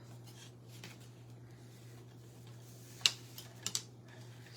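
Faint handling of ribbon being tied around a craft garland: a few small ticks, the sharpest about three seconds in and a quick cluster of lighter ones just after, over a steady low hum.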